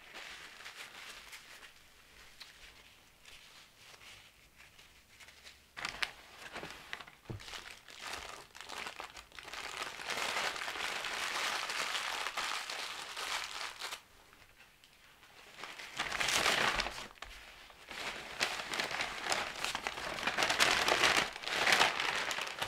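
Paper burger wrapper and napkins crumpled up in the hands, crinkling in stretches with short pauses; near the end a paper takeout bag is handled and crinkles, the loudest part.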